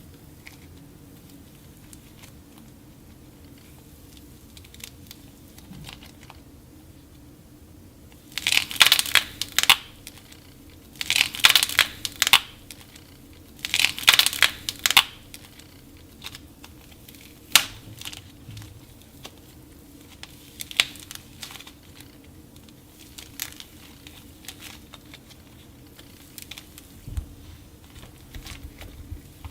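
Dry clay being cracked and crumbled, with three loud spells of dense crunching and crackling, each about a second or more long, about a third of the way in. After them come sparser single cracks and crumbles.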